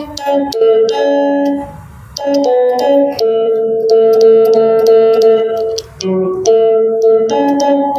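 Electric guitar playing a slow melody of single notes, with one note held for nearly three seconds in the middle.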